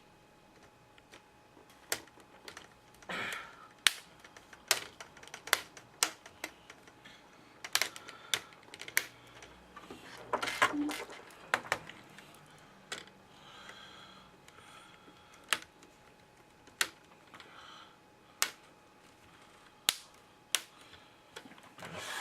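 Plastic snap clips of an HP Pavilion 15 laptop's screen housing clicking into place as the parts are pressed together: sharp single clicks at irregular intervals, with a couple of brief stretches of plastic rubbing.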